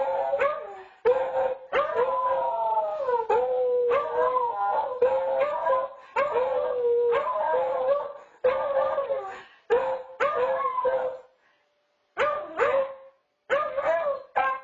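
Two beagles howling and baying together, a string of long wavering howls that overlap one another, with two brief silent gaps near the end.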